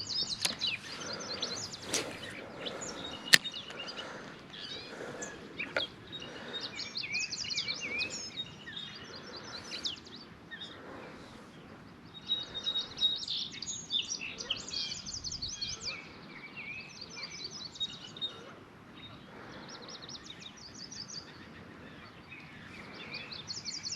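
Several songbirds chirping and trilling throughout, over a faint outdoor background, with a few sharp clicks in the first few seconds, the loudest about three seconds in.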